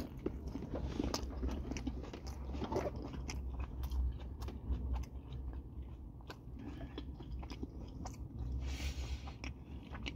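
Close-up sounds of a person chewing a mouthful of steak taco, with many small irregular crunches and wet mouth clicks.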